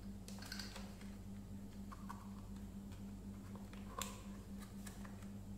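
Hard plastic toy robot being handled and turned over, giving scattered light plastic clicks and knocks, with a sharper click about four seconds in as fingers work at its battery cover. A steady low hum runs underneath.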